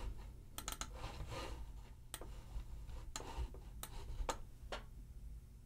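Computer mouse being clicked and moved on the desk: faint, irregular clicks about every half second, with light rubbing.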